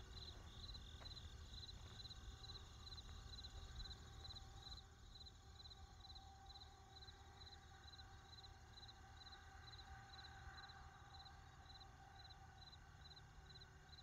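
Faint night ambience: a cricket chirping steadily, two to three chirps a second, over a low hum.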